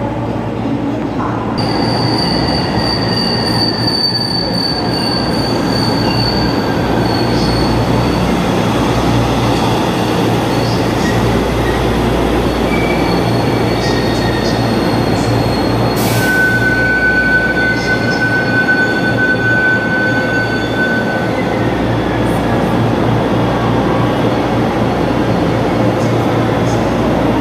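Taiwan Railway EMU500 electric multiple unit pulling in alongside a station platform, with a continuous rolling rumble. High-pitched wheel and brake squeals come and go over it, the strongest a steady squeal a little past the middle.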